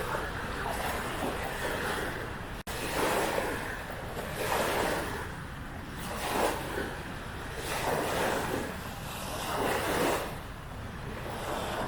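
Small lagoon waves washing onto the shore in irregular swells every second or two, with some wind.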